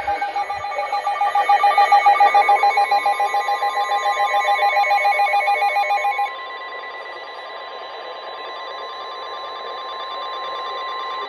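Emergency alert tones on NOAA Weather Radio. A pulsing, warbling electronic tone runs for about six seconds, then gives way to a single steady alarm tone, the weather radio warning alarm that comes before a warning message is read.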